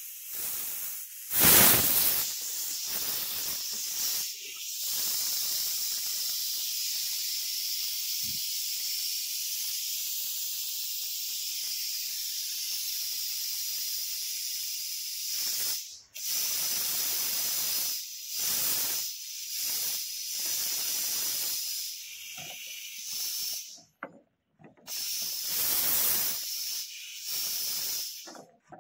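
Pressure-test gas hissing out of a refrigeration circuit as the test pressure is bled down from about 15 atmospheres toward 6. A sharp, loud burst comes about a second and a half in, then a long steady hiss to about the middle, then a string of shorter hisses with pauses between them.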